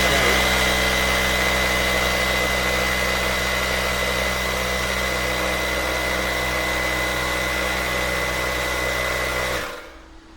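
Small electric air compressor running steadily with a constant motor hum, putting a little air into a new dirt-bike inner tube to give it shape before fitting. It cuts off suddenly near the end.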